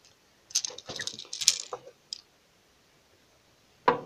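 A hard-plastic jerkbait with treble hooks going into a small plastic tub of water: a short splash with the hooks clicking and rattling, then one sharp click near the end as the sinking lure settles.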